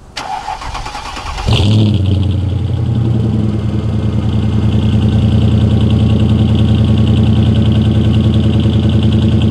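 Car engine heard at its exhaust tips, cranked by the starter and catching about one and a half seconds in. It then runs at a steady idle with an even, unchanging note.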